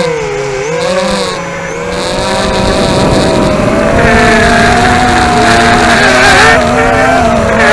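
Racing quadcopter's brushless motors and tri-blade props whining close to the onboard camera, several slightly different pitches at once. The pitch drops in the first second, climbs back and holds with the throttle.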